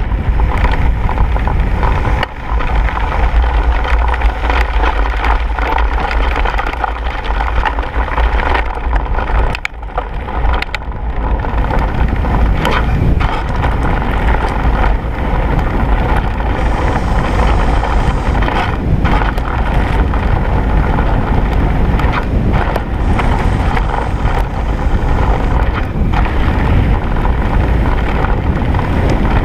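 Mountain bike rolling fast down a gravel track: the tyres rumble on the loose surface, wind buffets the microphone, and the bike gives off scattered short rattles and knocks over the bumps.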